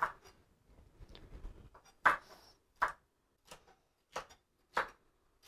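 Chef's knife chopping green pepper on a plastic cutting board: single knocks of the blade on the board, about every two thirds of a second from about two seconds in, after a short lull with faint small clicks.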